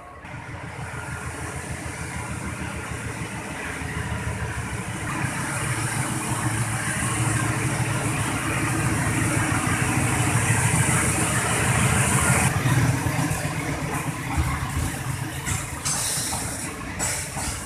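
Diesel locomotive-hauled passenger train coming in along the platform: the engine grows steadily louder to a peak about two-thirds of the way through, with a high hiss, then eases off as the coaches roll by with some knocks near the end.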